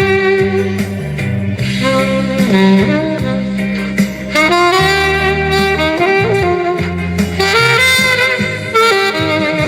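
Saxophone playing a melody through a PA sound system, over an accompaniment with a bass line that moves in held notes.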